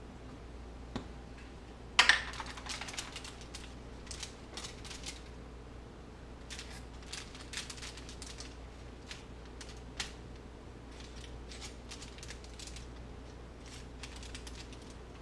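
Aluminium foil and paper towel crinkling and crackling in light, irregular clicks as hands handle raw fish fillets on them. There is one sharp tap about two seconds in.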